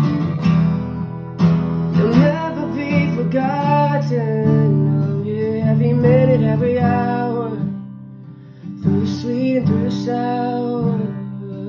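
Acoustic guitar being strummed while a man sings a melody over it. The playing thins out about eight seconds in, then a fresh strum comes in.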